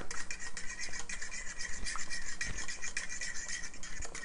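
Fork scraping rapidly around a metal saucepan, stirring a thick, lumpy roux-based cheese sauce, in quick, even strokes several times a second to beat out the lumps.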